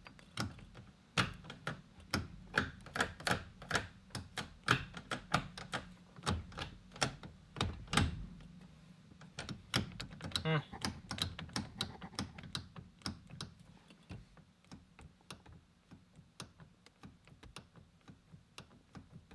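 Irregular sharp clicks and taps from hand work on a car's manual shifter assembly, several a second, loud for about the first ten seconds and then fainter.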